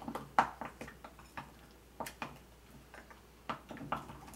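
Wooden spoon clicking against the side of a glass bowl while stirring a thick creamy dip: irregular taps, some in quick clusters, with short gaps between.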